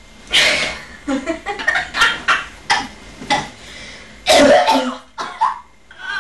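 A person crying in a string of irregular, breathy sobs and gasps.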